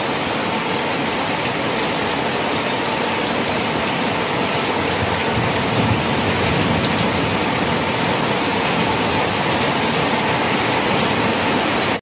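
Rain falling steadily on wet stone paving: a dense, even hiss with a few sharper drop ticks here and there.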